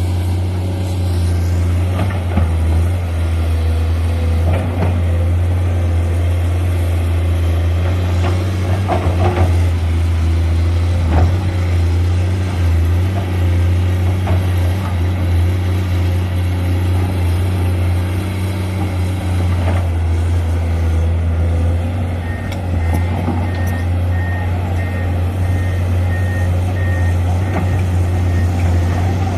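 Heavy diesel engine running steadily with a deep drone. About three-quarters of the way through, a reversing alarm starts beeping, about two beeps a second, as a truck or machine backs up.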